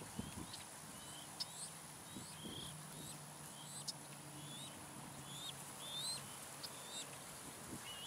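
Sandhill crane colts giving short, high peeping calls, a steady run of about two or three a second, with a faint low hum beneath.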